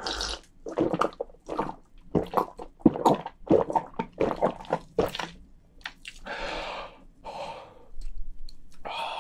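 A person gulping down a glass of carbonated cider (lemon-lime soda) in a quick run of swallows, about three a second, then breathing out in a long breathy exhale about six seconds in.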